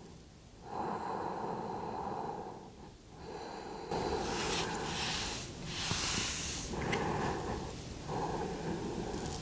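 A person breathing slowly and audibly, a run of long hissing breaths of one to two seconds each, the breaths growing louder and hissier about four seconds in.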